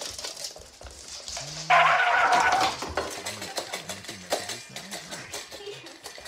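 Dog eating from a stainless-steel bowl: repeated small clinks and clicks of the bowl. About two seconds in there is a much louder pitched sound lasting about a second.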